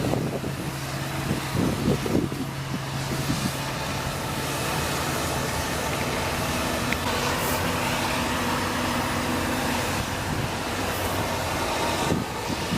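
Diesel engines of heavy farm machinery running steadily during maize silage chopping; the engine note changes about halfway through, with more hiss.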